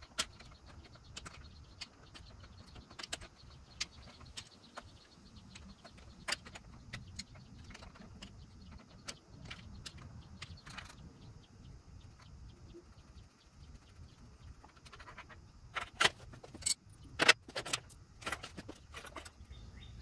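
Scattered metallic clicks and clinks of hand tools and loose steering hardware while a scooter's front fork is worked free, with a few louder knocks near the end.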